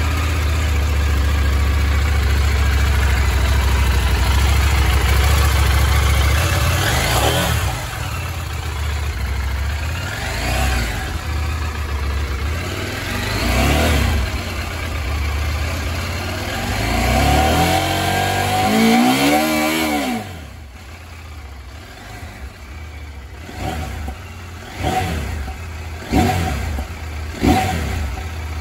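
CFMoto 800MT's 800cc inline twin-cylinder four-stroke engine, just started, idling steadily for several seconds and then revved: a few longer revs rising and falling, followed by a series of short, sharp throttle blips near the end.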